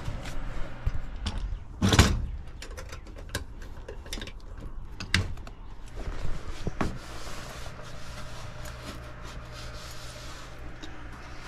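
Handling noises: scattered clicks and knocks, with one loud knock about two seconds in, over a steady low hum.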